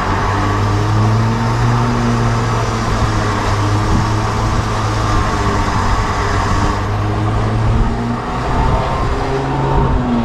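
Four-wheel-drive vehicle's engine running steadily with a low hum during a winch recovery of a bogged vehicle, the pitch shifting in the last couple of seconds.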